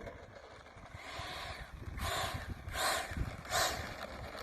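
Wind buffeting the microphone in a low, uneven rumble. About two seconds in come three short rustling swishes, roughly 0.7 s apart.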